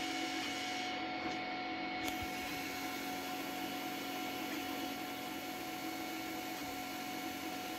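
Creality Ender 3D printer running mid-print: a steady whir of its cooling fans and motors, with a few constant tones.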